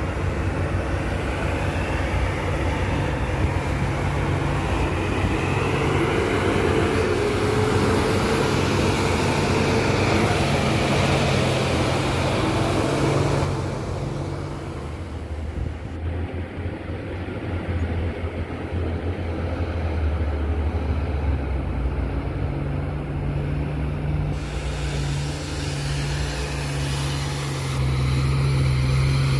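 Loaded Hino dump trucks' diesel engines working hard up a steep haul-road ramp, a steady low engine note. The sound drops off abruptly about halfway through, then builds again later.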